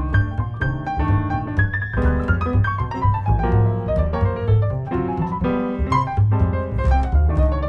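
Jazz played on a grand piano, a stream of chords and single notes with a falling run in the middle, over an upright bass.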